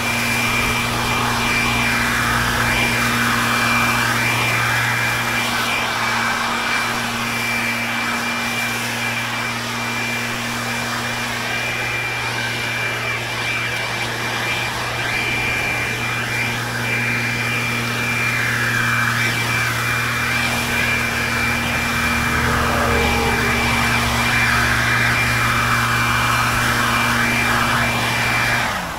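Leaf blower running steadily at full throttle, blowing leaves, with a constant high whine over the rush of air. It drops away suddenly near the end.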